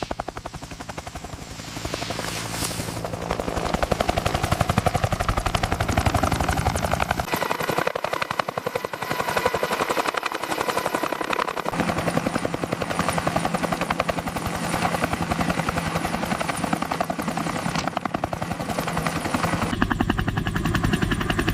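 Helicopter flying, its rotor blades beating fast and steady. The deep part of the sound drops away for a few seconds about seven seconds in.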